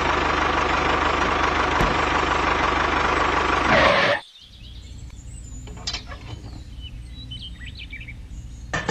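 A miniature model tractor's small motor running with a steady whine, cutting off abruptly about four seconds in. Faint bird chirps follow.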